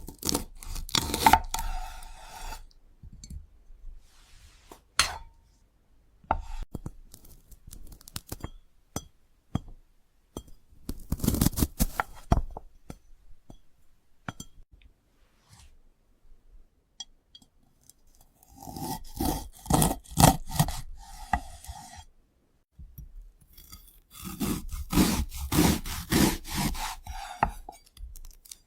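Repeated bursts of rapid scraping and rubbing strokes, each lasting a couple of seconds, with scattered sharp clicks in between.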